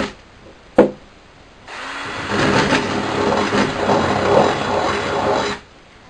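Cordless drill boring out a hole in a thin metal plate: a sharp click about a second in, then the drill spins up and runs for about four seconds, the bit grinding through the metal, and stops.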